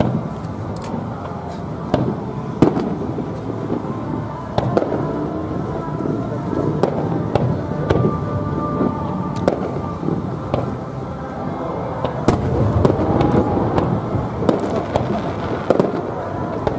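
Aerial firework shells bursting: an irregular string of sharp bangs over a steady background din.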